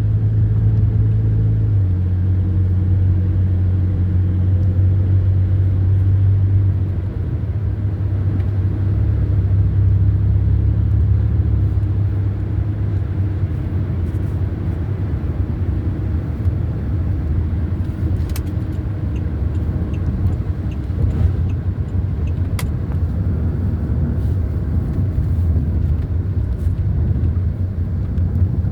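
Car driving: a steady low engine drone with road rumble, its pitch shifting a few times.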